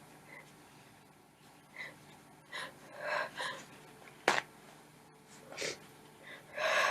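A woman's short, sharp gasping inhalations, the catching breaths of a sneeze building up, growing stronger near the end. About four seconds in there is one brief, sharp click.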